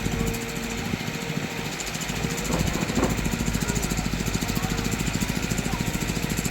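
Diesel engine of a backhoe loader or tractor running steadily with a fast, even pulse, with two short sharp sounds about halfway through.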